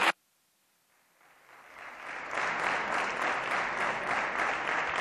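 Applause from the deputies in the parliamentary chamber. It drops out almost at once, and after about a second of silence it fades back in and builds to steady applause.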